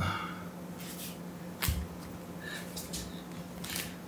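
Scattered short rustles and soft knocks of a person shifting on an exercise mat, the sharpest knock about a second and a half in, over a faint steady hum.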